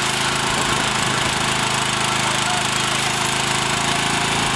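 An engine running steadily at a constant speed, with a low, even drone.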